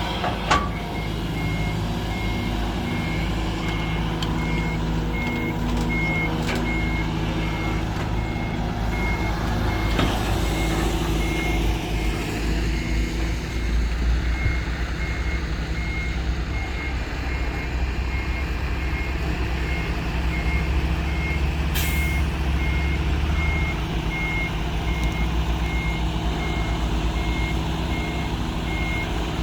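Heavy diesel engines of an excavator and dump truck running steadily, with a reversing alarm beeping about twice a second; the beeping drops out briefly around the middle.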